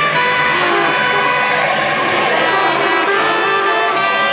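Live band music: trumpet and another brass horn playing held notes over electric guitar and bass.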